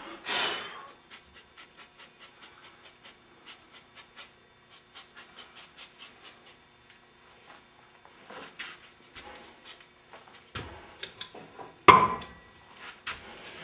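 Magnetic crack-detector yoke and UV lamp handled on a cast-iron cylinder head during a magnaflux check: irregular light clicks and scrapes of metal on metal, with a brief hiss at the start and a sharp knock about twelve seconds in, over a faint steady hum.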